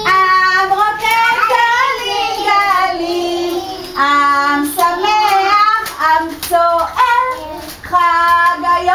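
High-voiced singing of a children's song, in phrases of long held and sliding notes with short breaks between them.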